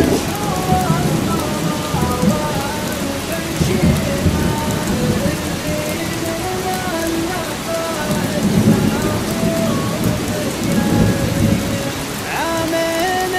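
Steady rain with several low rolls of thunder, and a slow wordless melody of held notes stepping up and down over it.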